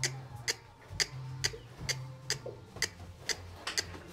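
Shod horse's hooves striking a hard floor in a steady rhythm, about two sharp clicks a second: a horse being schooled in dance steps. A faint low hum comes and goes under it.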